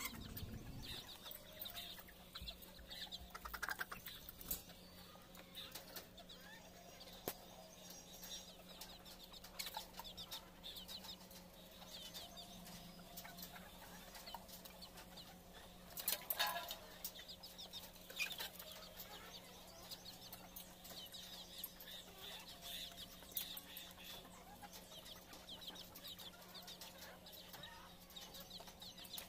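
A flock of chickens clucking quietly and intermittently, over a steady low hum, with one louder sudden noise just past halfway.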